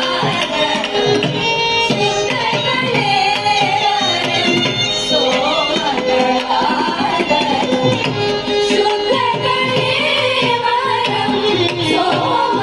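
Carnatic devotional song: a group of women singing together in unison, accompanied by mridangam drumming and violin.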